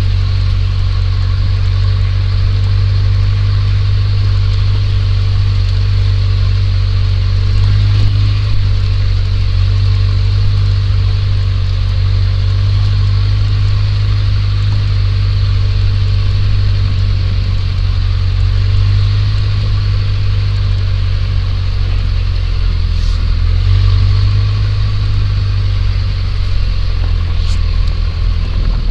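A vehicle engine running steadily, a loud low hum that swells a little now and then as it moves along.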